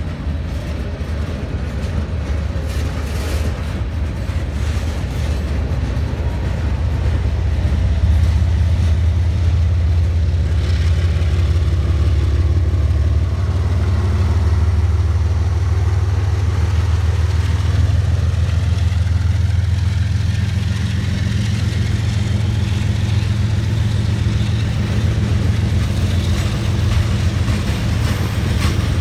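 Freight cars of a CSX manifest train rolling slowly past at close range: a steady low rumble of steel wheels on the rails, a little louder about eight seconds in.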